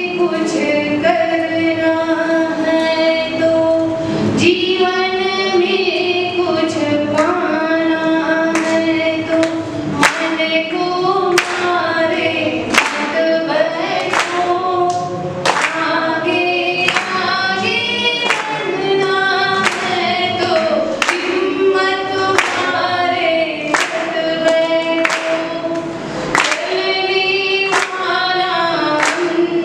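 A woman singing a short inspirational song solo into a public-address microphone, unaccompanied, holding long notes that glide between pitches. Sharp short sounds recur roughly once a second under the singing.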